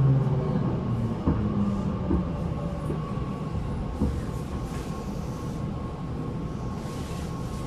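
Tobu 9050 series motor car heard from inside. The pitched tones of its Toyo GTO-VVVF traction inverter die away in the first second, and the train runs on with steady wheel-and-rail noise and a couple of single knocks. The air conditioning runs throughout.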